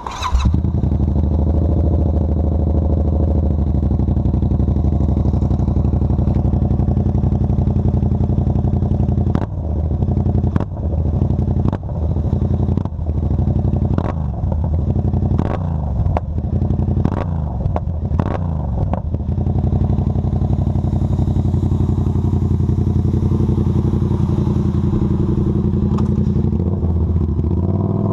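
Yamaha MT-07's 689 cc parallel-twin engine running through a Power full aftermarket exhaust, a deep exhaust note. It idles steadily, then is blipped about ten times from roughly ten to nineteen seconds in, with a sharp crack at each blip, before settling back to idle.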